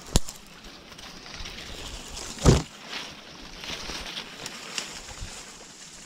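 Dry reeds and bamboo rustling and crackling as someone pushes through thick undergrowth, with a sharp snap just after the start and a heavier thud about two and a half seconds in.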